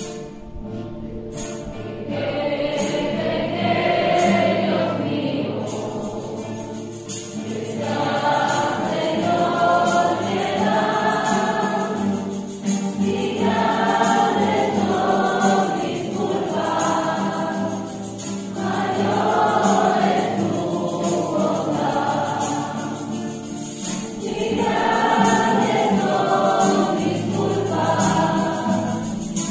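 Entrance hymn sung by a group of voices over instrumental accompaniment, with a steady beat of high-pitched percussion strokes; the singing comes in about two seconds in after a short instrumental opening.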